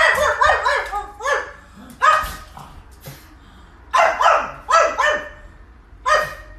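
A pug barking at a passer-by outside the window in short, arching barks: a rapid run of barks over the first two seconds, a pause, another quick run about four seconds in, and a single bark near the end.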